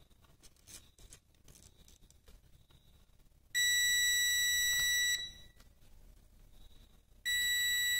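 Digital multimeter's continuity beeper sounding two steady high beeps, the first about a second and a half long and the second starting near the end, as the probes touch the switch wires. The beeps signal continuity between the red-green low-beam wire and the white-black common with the dimmer switch on low beam.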